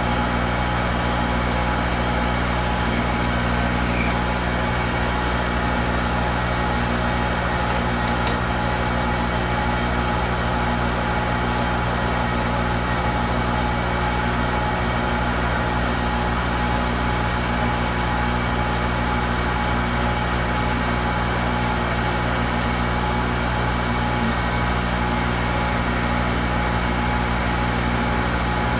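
Machinery running steadily: an unchanging electric hum with several steady whining tones layered over it, neither starting, stopping nor changing pitch.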